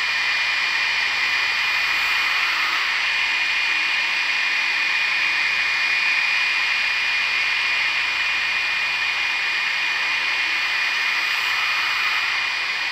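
Electric stand mixer running on high, its wire whisk beating egg yolks and vinegar in a steel bowl as the base for mayonnaise: a steady motor whine with a thin high tone running through it.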